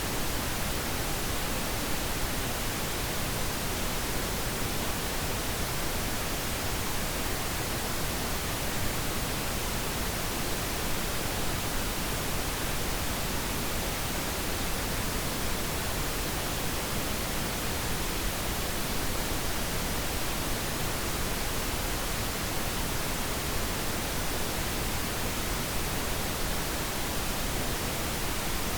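Steady pink noise: an even, unchanging hiss spread across all pitches, generated as a sleep sound for babies.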